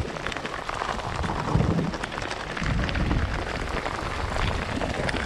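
Heavy rain falling, with many small drop hits and a low rumble underneath.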